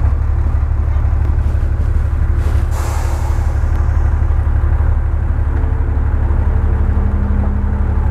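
Loaded dump truck's diesel engine running with a steady low throb; a short hiss of air, like an air-brake release, about three seconds in, and a steady hum joins the engine sound in the last few seconds.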